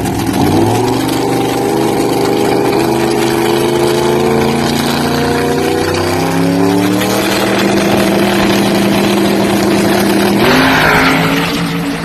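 1957 Chevrolet drag car's engine at full throttle as it launches and accelerates down the strip, running loud and high-revving. Its pitch steps down twice at gear changes, and the sound shifts abruptly near the end.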